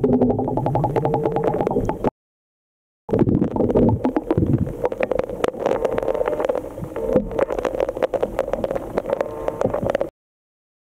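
Muffled underwater sound picked up by a submerged camera: water gurgling and crackling against the housing. It cuts to dead silence for about a second, two seconds in, and cuts off again near the end.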